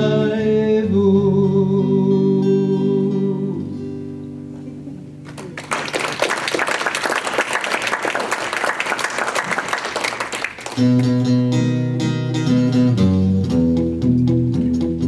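A sung note held over acoustic guitar fades out, followed by about five seconds of audience applause. About eleven seconds in, an acoustic guitar starts strumming a steady rhythm with alternating bass notes.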